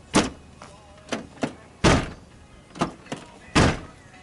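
Door of a 1991 Acura Integra, on freshly fitted used hinges being adjusted, thudding against its frame as it is pushed shut: three solid thuds about a second and a half apart, with lighter knocks between them.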